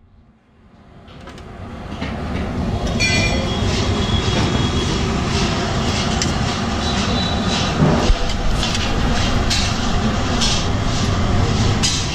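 Steady rumbling background noise with scattered clicks and clatter, fading in over the first two seconds.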